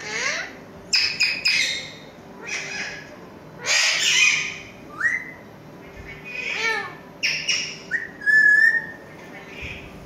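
Ringneck parrots calling: a run of short squawks and chirps, some sliding up in pitch, and a held whistle near the end.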